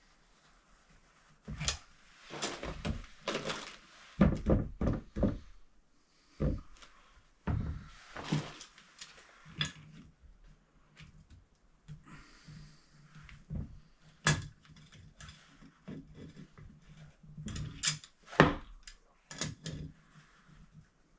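Irregular knocks, thuds and short scrapes of installation work in a small room, as tools and fittings are handled and set down, with a few sharp clicks.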